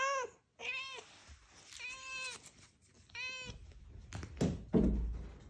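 Scottish Straight cat meowing with a toy held in its mouth: four short meows about a second apart. Near the end come a couple of sharp knocks and a louder low thump.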